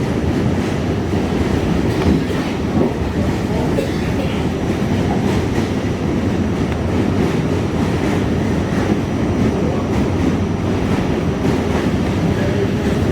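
An R68A subway car running along the track, heard from inside the car: a steady rumble of wheels on rail with faint, irregular clicks from the rails.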